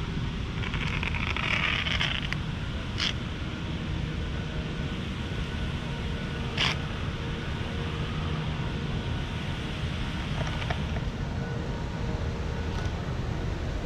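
Steady low outdoor background rumble, with a short rustling hiss about a second in and two sharp clicks, about three and six and a half seconds in.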